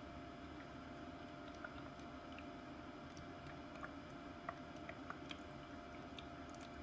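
Scentsy cold-mist diffuser running: a faint steady hum with a thin steady tone, and scattered small clicks and pops from the water as it mists, more of them in the second half.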